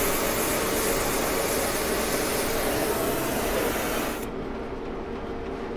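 Gas fusing torch flame hissing steadily on a rotating plug while fusing its sprayed alloy powder coating, over a steady machine hum. About four seconds in the hiss cuts off abruptly, leaving only the quieter hum.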